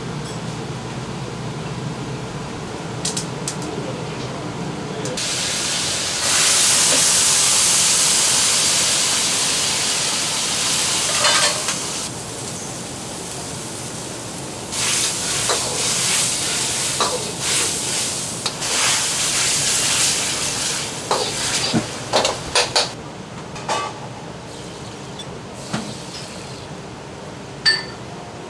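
Wok cooking: a loud sizzling hiss starts about six seconds in and lasts several seconds, then comes in bursts as a metal ladle stirs and scrapes in the wok, with sharp ladle clanks and a few taps near the end.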